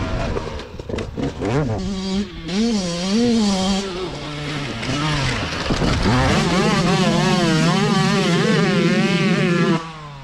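Two-stroke Yamaha YZ motocross bike engine revving hard under a rider, its pitch rising and falling over and over. It then holds high for a few seconds and cuts off abruptly near the end.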